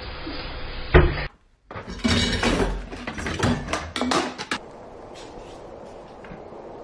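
A sharp knock about a second in, then after a short break a run of clattering knocks and bangs for about three seconds, settling into a low steady room tone.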